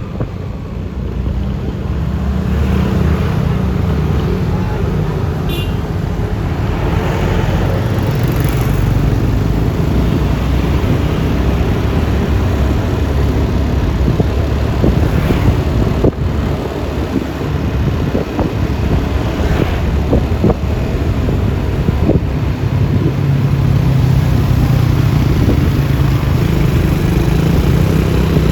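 Riding a Yamaha Lexi LX 155 scooter in traffic: wind and road noise over the scooter's running engine, with other vehicles' engines rising and fading as they pass.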